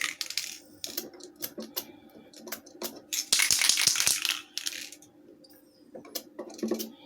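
Small hard parts of an electric fan clicking and clattering as they are handled, with a hissing burst of aerosol lubricant spray lasting about a second and a half near the middle.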